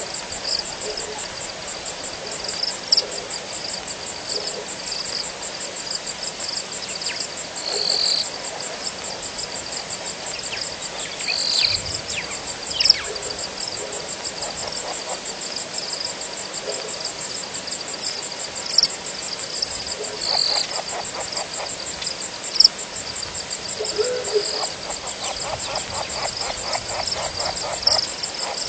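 A chorus of frogs and insects: a steady high, fast-pulsing insect trill, repeated chirps, and short low frog calls, with rapid pulsed frog trills joining about two-thirds of the way in and again near the end.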